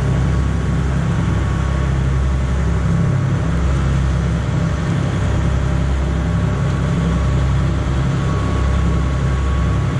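Fishing boat's engine running steadily under way: a loud, even low drone with a faint constant hum above it.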